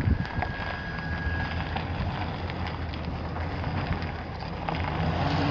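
Wind buffeting the microphone over the steady low running of a pickup truck's 6.0-litre V8 gas engine.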